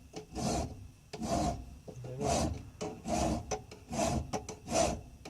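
Large metal file rasping across the inside of a steel adjustable wrench's jaws in steady back-and-forth strokes, about one a second.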